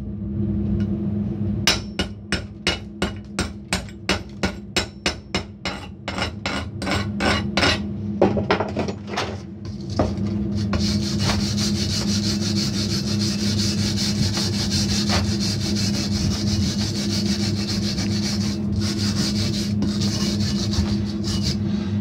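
A chipping hammer knocking slag off a fresh stick weld on steel, quick metallic taps about three a second for several seconds. Then a wire brush scrubbing the bead in a steady scratchy hiss, over a steady low hum.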